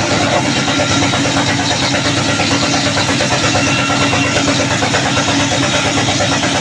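Sawmill machinery running steadily, with an even engine-like drone and a constant tone throughout.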